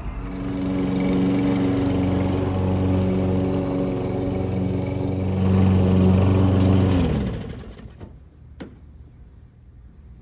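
22-inch Toro push mower's gas engine running steadily. About seven seconds in it is shut off and its pitch falls as it spins down to a stop. A single sharp click follows about a second later.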